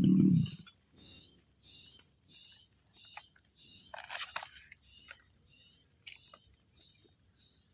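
A loud low hum cuts off half a second in. Faint insect chirping follows, in a quick even rhythm over a steady high tone, with a short rustle-like burst about four seconds in.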